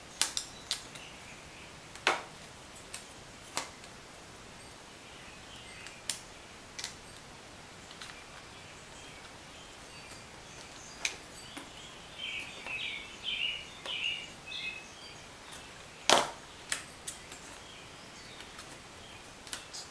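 Scattered light clicks and taps of a glass screen panel and the display layers being pressed into a GPS unit's metal LCD frame; the sharpest click comes about sixteen seconds in. A run of faint high chirps sounds about twelve to fifteen seconds in.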